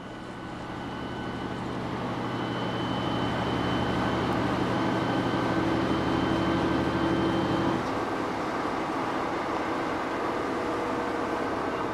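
Passenger train running, heard from inside the carriage: a steady rumble and hiss with a low hum and faint high whines. The low hum stops suddenly about eight seconds in.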